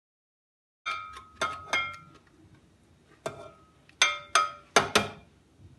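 Metal box grater knocking against a glass mixing bowl after grating an onion: about eight sharp, ringing clinks in two groups, starting about a second in.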